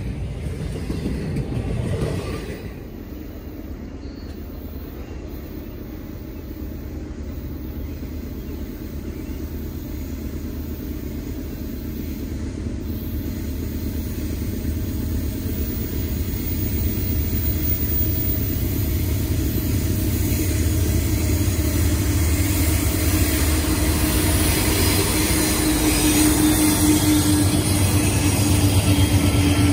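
Intermodal freight cars rolling past for the first couple of seconds, then a pair of Norfolk Southern diesel locomotives approaching, their engine drone growing steadily louder as they draw near and pass.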